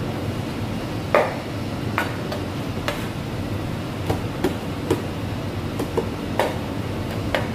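Irregular sharp knocks and clacks of kitchen work, about a dozen, over a steady low rush of kitchen background noise.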